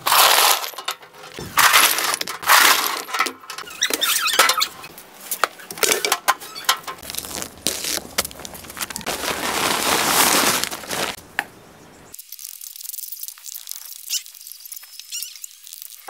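Loud, irregular scraping and rasping noises from hand work with cement and sand, including a paper cement bag being cut open and emptied. About twelve seconds in the sound turns quieter and thinner.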